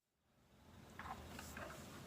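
Keys of an Anne Pro 2 60% mechanical keyboard pressed a few times, faint separate clacks starting about a second in, out of dead silence.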